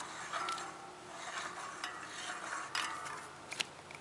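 Light metallic rubbing and small irregular clicks of a disc brake rotor and threaded adapter being screwed by hand onto a bicycle hub's freewheel threads as the spoked wheel is turned, with a few sharper clicks in the second half.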